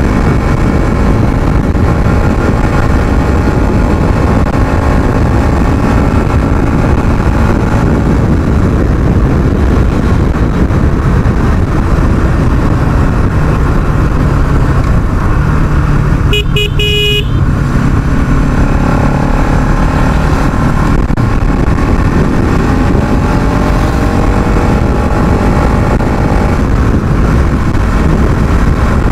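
Bajaj Pulsar NS200's single-cylinder engine pulling hard while riding at speed, its pitch rising and falling with throttle and gear changes. A vehicle horn sounds briefly a little past halfway.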